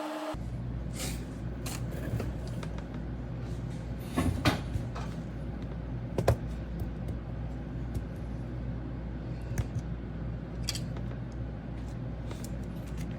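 Steady low electrical hum with a few small clicks and taps scattered through it.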